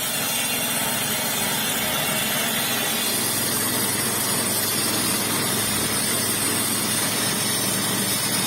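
A sawmill running, an even, unchanging machine noise with a steady low hum beneath it.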